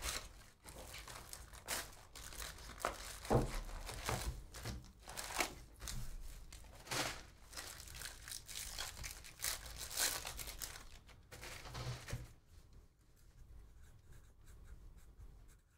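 Plastic wrapping of a Panini Donruss trading-card box and pack crinkling and tearing as it is ripped open, in a run of short rustling bursts that die down after about twelve seconds.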